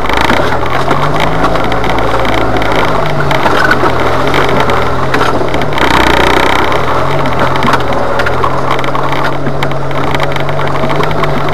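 Jeep Wrangler engine running at low revs, its note rising and falling slightly as it crawls over the trail, under a loud, continuous crackling of tyres rolling over dry leaves and sticks.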